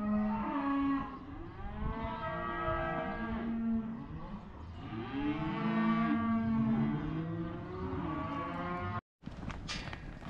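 Cattle mooing and bawling, several cows and calves calling over one another in long calls, as the cows are sorted away from their calves for weaning. After a cut near the end, hooves clatter on the dirt as cattle walk past.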